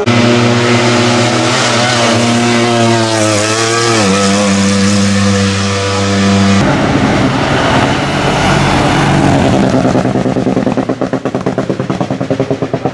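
Hillclimb race cars running hard. A steady engine note dips and recovers about four seconds in, as at a gear change. About two-thirds of the way through it changes abruptly to a rougher engine sound that pulses several times a second as another car approaches the bend.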